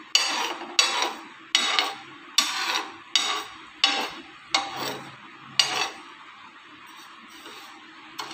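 Steel spoon stirring granulated sugar in a non-stick pan, knocking and scraping against the pan in a steady rhythm of about eight strokes, a little under one a second. The strokes fade to a softer scraping for the last couple of seconds.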